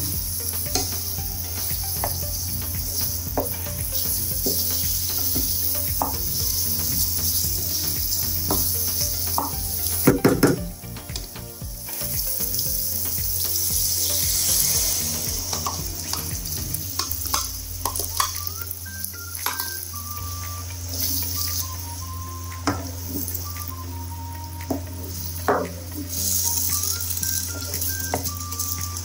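Minced meat and tomatoes sizzling in a frying pan while a wooden spatula stirs and scrapes through it, with scattered clicks from the spatula on the pan and a louder clatter about ten seconds in. Faint background music with a simple melody joins in the second half.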